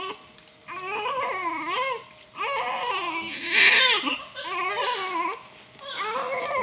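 Newborn baby crying: four wailing cries, each about a second long with short breaths between, the second rising to a loud, shrill peak in the middle.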